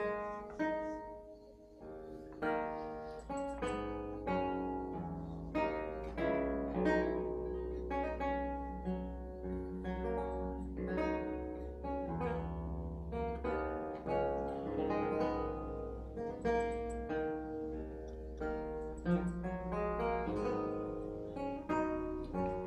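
Solo Baroque long-necked lute with an extended bass neck, played fingerstyle: a melody of separately plucked, ringing notes over low bass strings that ring on underneath.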